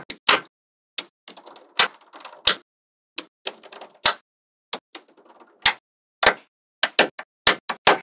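Small magnetic balls snapping into place on a magnet-ball build: a dozen or so sharp clicks at irregular intervals. Between them are three short spells of soft rattling as loose balls shift against each other.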